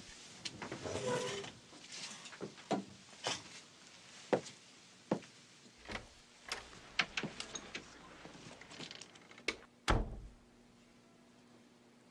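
A chair shifting, then footsteps and small knocks as someone crosses a room and works a door, which shuts with a deep thud about ten seconds in.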